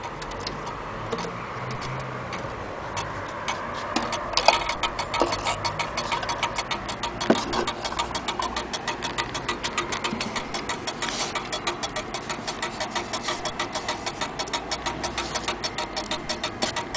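Antique Vienna wall clock ticking steadily and evenly, heard close to the case, with a few louder single clicks in the first half.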